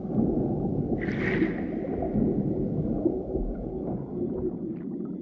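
Low, dense underwater ambience, with a brief whoosh about a second in.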